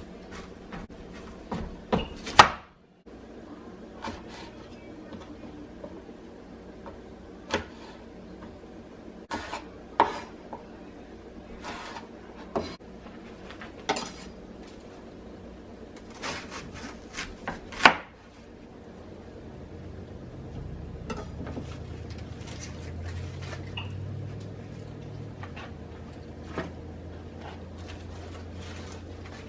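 Kitchenware clattering: a string of sharp knocks and clinks of dishes and utensils being handled and set down. After them a low steady rumble comes in.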